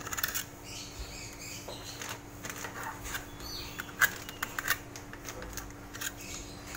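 Irregular light clicks, taps and rubbing of hand work on the greased underside of a spice mixer's bowl, packing grease around the drive hole to seal it against leaking oil. A quick run of clicks comes right at the start and a sharper tick about four seconds in, over a faint steady hum.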